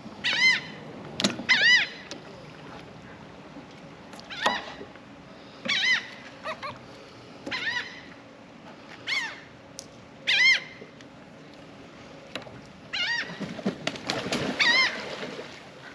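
Gulls calling over and over: short, arched cries, one every second or two, about ten in all.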